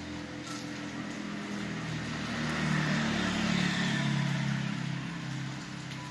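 A motor vehicle passing on the wet road: engine hum and tyre hiss on wet asphalt swell to a peak in the middle and fade away, over steady rain.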